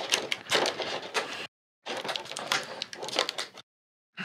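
Clear plastic packaging crinkling and clicking as small action-figure accessory pieces are worked loose from it, in two stretches with a short break between them.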